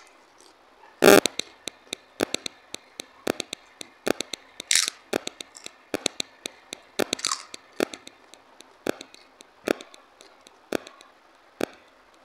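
Crunching on crisp papad: a string of sharp, irregular crunches, the loudest about a second in, with a couple of short breathy hisses in between.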